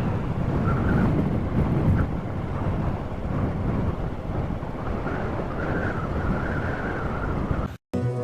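Heavy wind noise buffeting the microphone on a moving motorcycle, a steady low rumble. It cuts off suddenly near the end.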